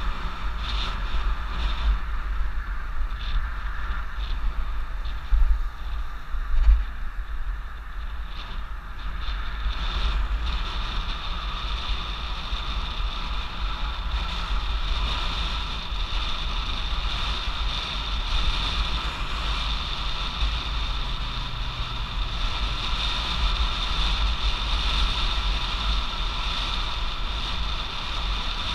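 Wind buffeting the microphone of a camera mounted on a Stromer ST2-S e-bike riding at speed, over steady tyre and road noise. Two brief thumps come about five and a half and six and a half seconds in.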